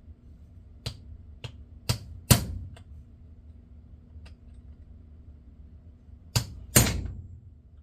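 A small hammer striking metal in sharp, uneven taps, about eight in all, the hardest two about two seconds and seven seconds in, each with a short ring: peening the fishing reel's shaft post to stop the bent shaft spinning in the side plate.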